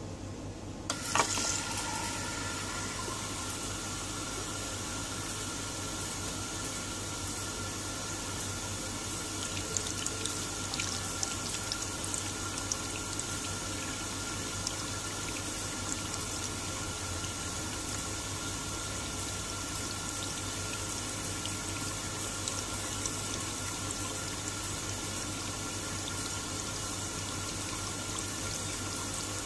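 Conti+ electronic sensor faucet coming on with a click about a second in, then running steadily into a full container below the spout. It keeps running on because an object sits in front of its sensor. A faint steady low hum runs underneath.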